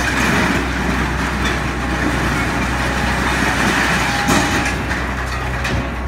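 Scrap metal grinding and crashing as a material handler's grapple digs into and lifts a load of scrapped appliances, over the machine's steady low hum. It starts suddenly, with a couple of sharp metal clanks around four seconds in and near the end.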